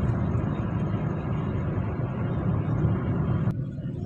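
Steady road and engine noise heard from inside a moving car's cabin, mostly a low rumble. The higher hiss drops away abruptly about three and a half seconds in.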